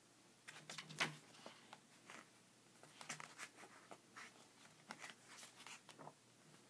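Faint rustling and light ticks of paper pages being handled and turned by hand in a graphic novel, loudest about a second in.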